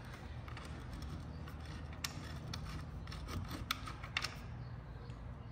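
Faint, scattered small metal clicks and taps as screws are started into the aluminium starter housing of a 1950s Sears gear-drive chainsaw, over a low steady hum.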